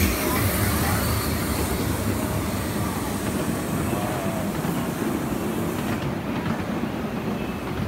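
Ride-on miniature live-steam railway train running along the track, a steady rumble of the cars rolling on the rails, heard from aboard.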